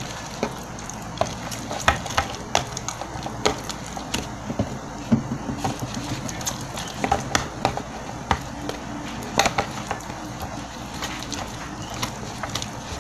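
Stiff old slime being worked with added glue, making irregular sharp clicks and pops, several a second in places.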